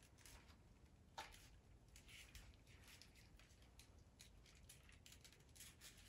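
Near silence, with faint small clicks and rustles from the plastic 7-pin trailer plug connector and its wiring being handled, and one slightly sharper click about a second in.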